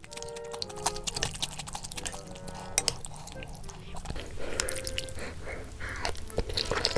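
Close-up eating of rice cake and dumpling soup: wet slurping and chewing, broken by many sharp clicks like a spoon or chopsticks against the bowl.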